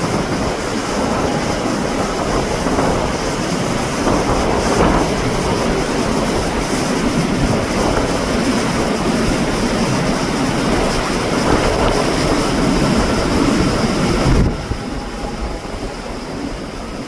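Strong typhoon wind and rain: a loud, rushing noise that swells in gusts, with wind buffeting the microphone. The noise eases suddenly near the end.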